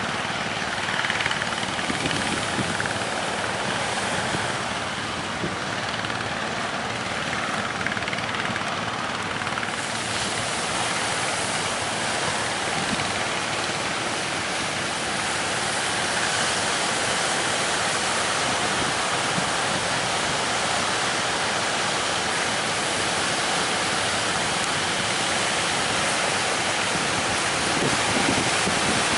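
Strong wind on the microphone and waves at sea, over a running fishing-boat engine, as one steady noise. The hiss grows stronger about ten seconds in.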